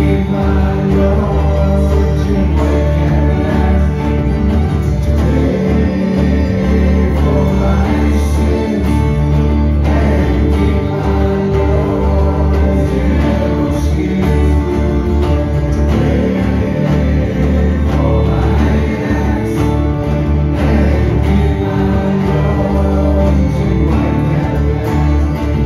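Live acoustic performance of a rock song: a Takamine acoustic-electric guitar and a cello with other strings playing steadily, with men's voices singing together over them.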